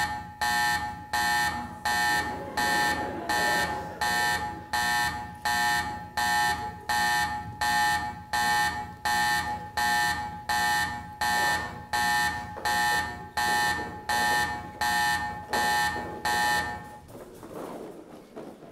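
Pulsing electronic alarm tone, a loud buzzing beep repeating about twice a second, which stops about seventeen seconds in.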